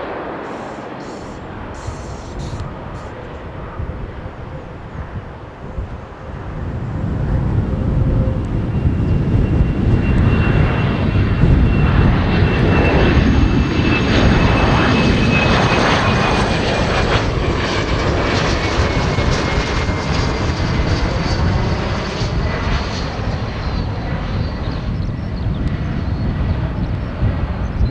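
Jet airliner passing close by: the engine noise swells over several seconds, and its high whine slides steadily down in pitch as the aircraft goes past, then slowly fades.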